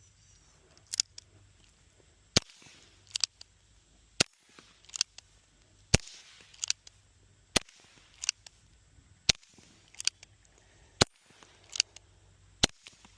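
Suppressed Nagant M1895 gas-seal revolver fired seven times, one shot about every 1.7 seconds. Each shot is a short, sharp crack, very quiet for a gunshot ("movie quiet"). Between the shots come quieter sharp clicks.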